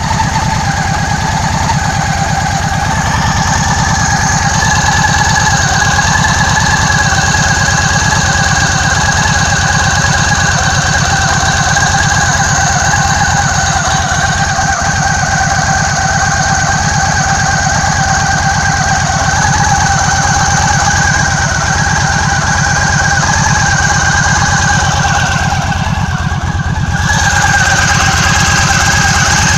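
Yamaha Stryker (XVS1300) V-twin engine running at a steady idle, with a constant high-pitched whistle held over the engine beat. The sound shifts briefly and comes back slightly louder near the end.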